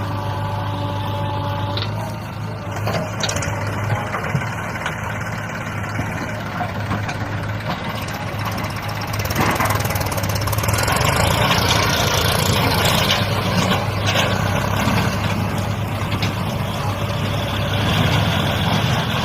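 Heavy diesel engine running steadily, growing louder about halfway through.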